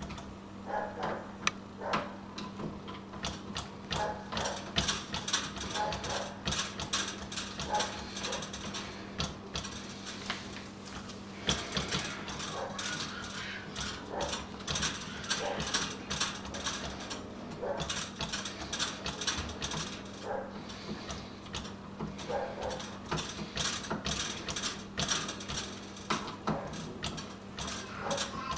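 A Phillips screwdriver driving the mounting screws of a new deadbolt: a long run of small, irregular metallic clicks and scrapes.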